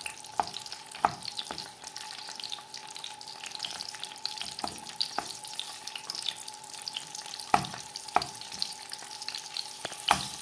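Garlic cloves frying in cooking oil in a pan, sizzling steadily with fine crackles. A utensil presses and mashes the garlic against the pan, giving irregular knocks every second or so.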